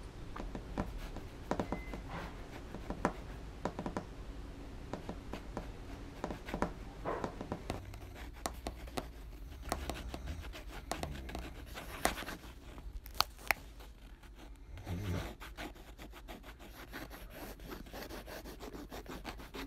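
Irregular scratching and rubbing of a pen and hands on paper, with many small clicks scattered through it and two sharp clicks close together a little past the middle.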